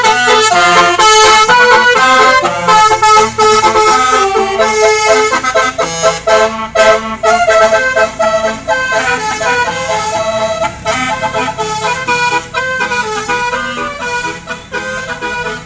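Bus telolet horn, a multi-tone musical air horn, playing a tune of quick, shifting reedy notes, several sounding together at times. Loud.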